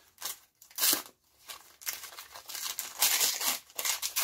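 Gift wrapping paper crinkling and tearing as it is pulled off a deck of playing cards, in a string of short rustles, loudest about a second in and again about three seconds in.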